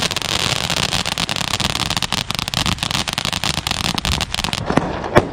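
Ground fountain firework spraying sparks with a steady hiss and dense crackling, then a couple of sharp pops near the end.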